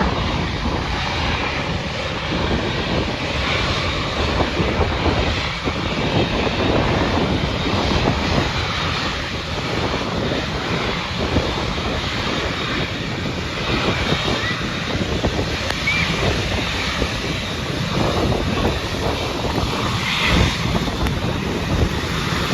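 Jet airliner engines at an airport, a steady rushing noise that holds at much the same level throughout.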